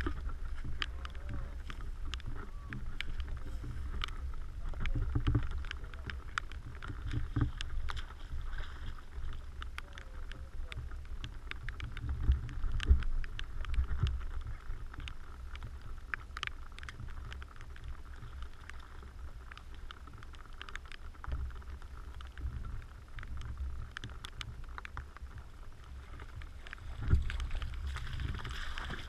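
Shallow river water lapping against a waterproof camera housing at the waterline, with a low rumble and scattered sharp ticks of water drops striking the housing. Near the end, a rubber boot splashes through the shallows close by.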